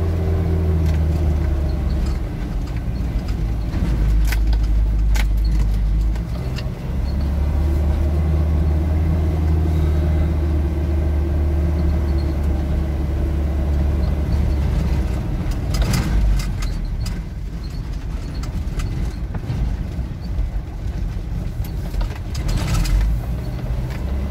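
Car engine running at a low steady drone, heard from inside the cab as it drives down a rough gravel track. Tyre and road noise runs underneath, with scattered knocks and rattles from stones and the bumpy surface.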